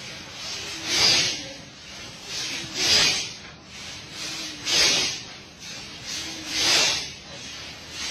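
A congregation chanting zikr in unison: a loud, breathy group exhalation about every two seconds, four times, each followed by a short, low voiced sound.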